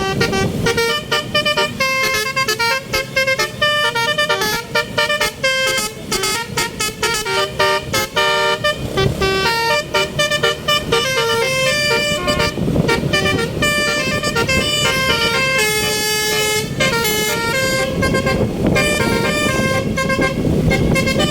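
Bus telolet horn (multi-tone basuri air horn) playing a rapid melody of short notes, over the low rumble of the moving bus.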